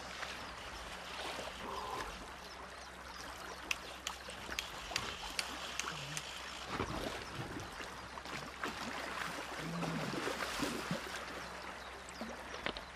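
River water running steadily, with scattered light clicks over it.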